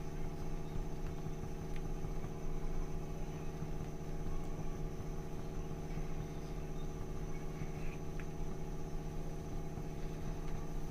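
A steady low mechanical hum, as from a running motor, with a few faint clicks.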